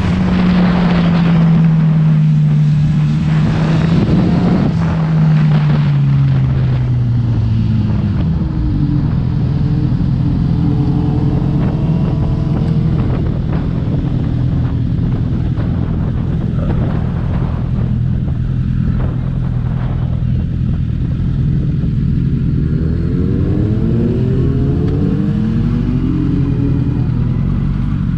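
Honda CBR1000's inline-four engine running under way: its note falls over the first eight seconds or so as it slows, then holds steady. Near the end a higher engine note rises and falls over it.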